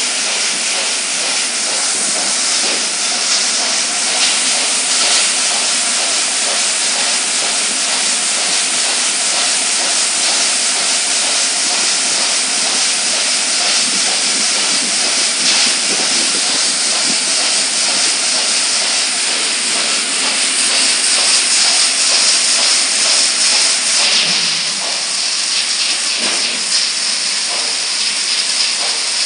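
BOPP adhesive tape jumbo roll slitting machine running: a loud, steady hiss of the tape film unwinding, being slit and rewound onto cores. The noise eases slightly about three-quarters of the way through.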